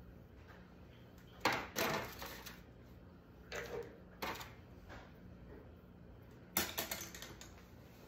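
Short clattering knocks and clicks of small hard objects being handled and set down, in clusters about a second and a half in, around four seconds and again near seven seconds, over a faint steady hum.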